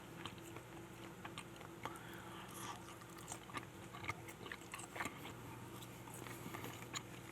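Close-up chewing and biting of fried chicken: faint, irregular crunches and mouth clicks, with a steady low hum underneath.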